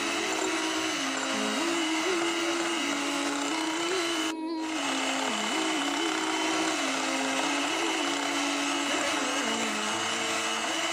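Electric hand mixer running steadily, its twin wire beaters whipping butter and icing sugar into buttercream in a glass bowl, the motor's pitch wavering as the load changes. The sound breaks off for a moment about halfway through.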